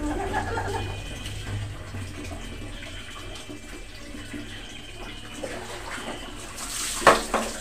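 Water sounds of a dog being bathed: hands rubbing wet, soapy fur with water dripping and sloshing. A brief sharp noise about seven seconds in is the loudest moment.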